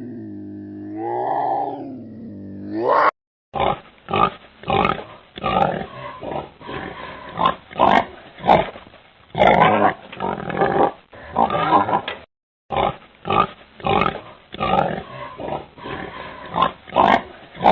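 A drawn-out animal call that dips and rises in pitch and cuts off about three seconds in, then pigs grunting in many short bursts, a couple a second, with a brief break near the middle.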